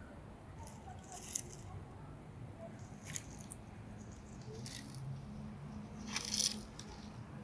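Dry leaf litter crunching in four short crackles, the last one, about six seconds in, the longest and loudest.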